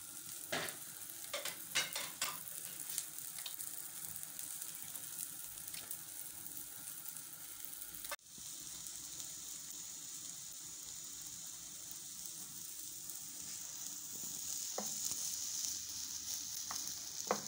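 Egg omelette frying in hot olive oil in a nonstick pan: a steady sizzle that grows a little louder near the end, with a few light clicks in the first couple of seconds.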